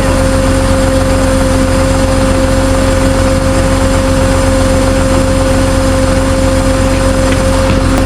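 Vehicle engine running steadily, a low rumble with a constant whine over it.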